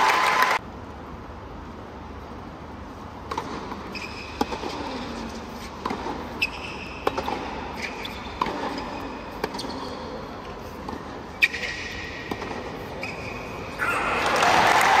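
Crowd applause that cuts off about half a second in, then a hard-court tennis rally: a string of sharp racket strikes on the ball with short high shoe squeaks, and crowd applause breaking out again near the end as the point finishes.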